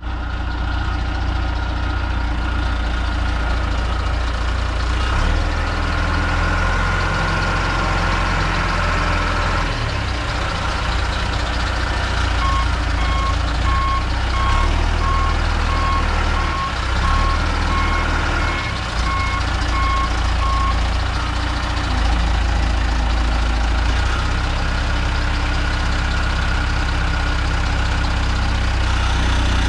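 1998 John Deere 410G loader backhoe's diesel engine running as the machine works, its engine note shifting every few seconds. A backup alarm beeps at a steady pace for several seconds in the middle as it reverses.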